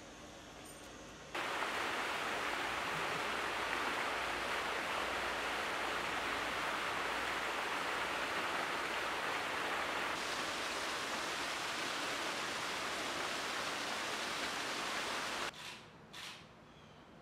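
A steady, loud rushing noise with nothing distinct in it. It cuts in abruptly about a second in and stops just as abruptly near the end, where a few faint ticks follow. Its highest hiss drops away partway through.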